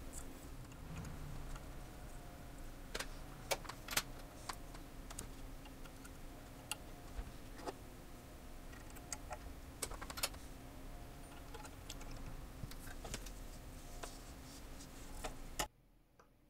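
Irregular small metallic clicks and taps of brass clock wheels and arbors being handled and seated into the plates of a Victorian carriage clock movement, over a steady low hum that cuts off suddenly near the end.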